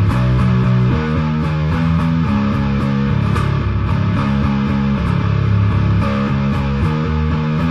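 Instrumental rock/metal music led by bass guitar playing a riff of changing low notes, over a steady beat.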